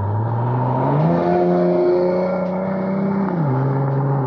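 2014 Ford Mustang's engine and exhaust accelerating hard past, the engine pitch climbing steadily under load. About three and a half seconds in the pitch drops sharply at a gear change, then the engine pulls on.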